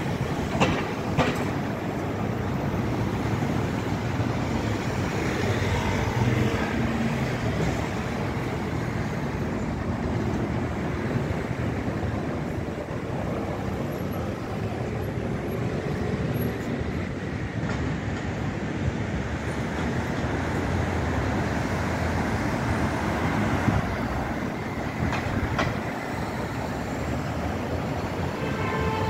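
City street traffic: cars and vans passing on the road with a steady rumble of road noise. A couple of short sharp knocks stand out near the start.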